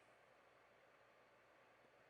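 Near silence: faint room tone and microphone hiss.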